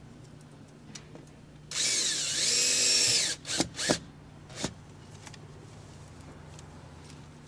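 Cordless drill driving a screw through a water heater's mounting flange into the sidewall: one run of about a second and a half with the motor whine dipping, rising and then holding, followed by three short trigger bursts.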